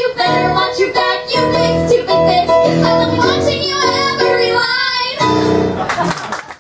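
Two women singing a comic musical theatre duet together, with instrumental accompaniment.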